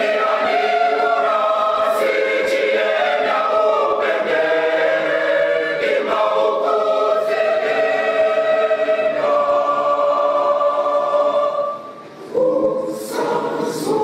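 Mixed choir of men and women singing a Shona hymn in parts, holding sustained chords that shift every second or two, with a short break about twelve seconds in before the voices come back in.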